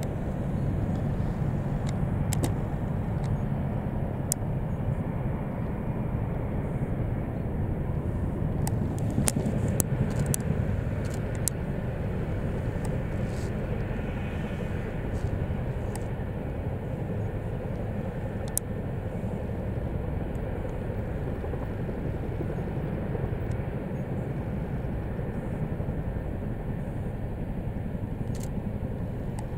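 RAF Chinook tandem-rotor helicopter flying low across the airfield and settling into a hover to land: a steady drone of rotors and twin turbines, a little louder around ten seconds in.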